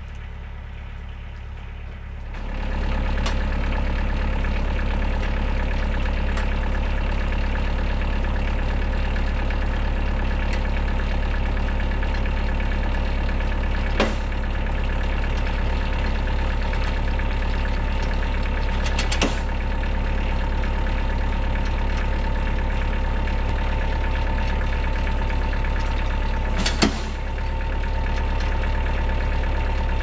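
Kioti DK40se tractor's diesel engine running steadily, driving the PTO skidding winch as it takes up light tension on its cable. The engine steps up louder about two and a half seconds in. Three sharp clicks come through, the loudest near the end.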